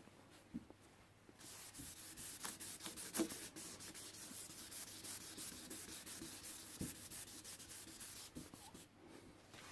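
1500-grit sandpaper wet-sanding a plastic headlight lens: rapid rubbing strokes that start about a second and a half in and ease off near the end.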